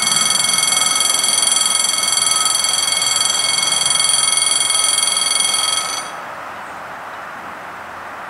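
A railway electronic warning bell rings steadily and high-pitched, then cuts off abruptly about six seconds in. After it stops, only the faint even sound of the regional train approaching remains.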